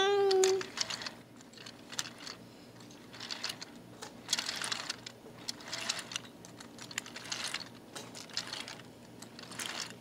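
A loud held, pitched note cuts off about half a second in. Then a wooden toy train rolls along wooden track with irregular clicks and rattles as its wheels cross the track joints.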